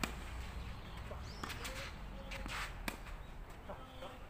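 Tennis balls struck with rackets in a fast volley rally: several sharp pops, the loudest right at the start and another strong one near the end, with a steady outdoor hum underneath.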